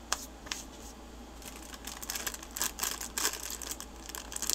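Printed plastic packaging crinkling as it is handled in the hands: a couple of sharp clicks at first, then a busy run of crackles from about a second and a half in.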